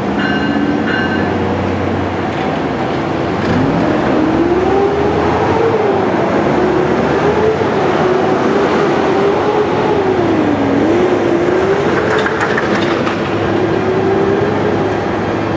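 NJ Transit ALP-45DP dual-mode locomotive pulling a commuter train into a station under diesel power: a steady rumble of engine and wheels, with a whine that rises and falls in pitch from about three seconds in. A short rattle of clicks comes near the end.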